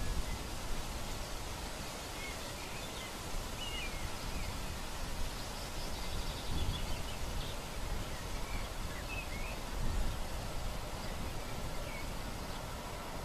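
Outdoor ambience: steady wind noise with low gusts, and a few short bird chirps scattered through it.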